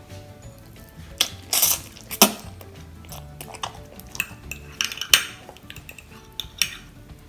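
Metal fork clinking and scraping against a glass dish while picking up instant noodles, with several sharp clinks, alongside close-miked chewing of the noodles.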